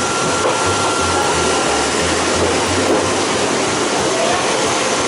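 A moving train making a loud, steady rushing noise, with a low, uneven pulsing underneath.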